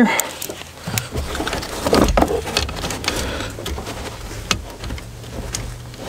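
Hand-work noises at a brake master cylinder: irregular light clicks, taps and rustling as homemade bleeder lines are threaded into its ports. A faint low steady hum sits under them from about two seconds in.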